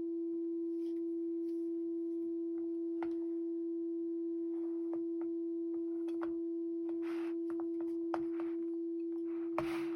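A steady mid-pitched pure tone from a smartphone frequency generator playing at full volume through the phone's speaker in a pan on an upside-down keyboard. Scattered faint ticks and short rattles sound through it, more of them near the end.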